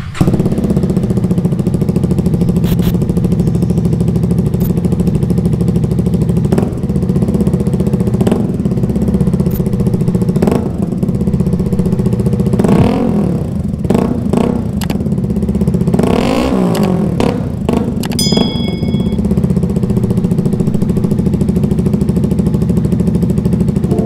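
FKM 3GP's 292cc liquid-cooled single-cylinder four-stroke engine starting up and idling. It is blipped a few times about halfway through, with a longer rev near two-thirds in, and then settles back to idle.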